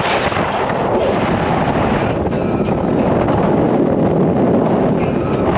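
Wind rushing over the microphone on a motorboat underway: a loud, steady noise of wind and engine with no clear pitch.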